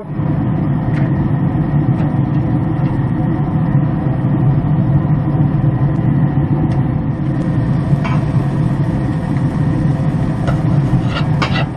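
Steady machine hum with a low rush, even throughout. A few light metal clicks of tongs on the grill grate come near the end.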